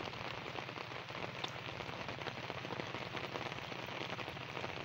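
Steady rain falling on waterlogged fields: a dense, even pattering of drops.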